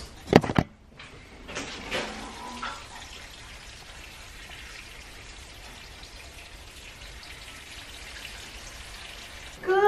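Water sprinkling from a metal watering can onto potted plants, with two sharp knocks about half a second in.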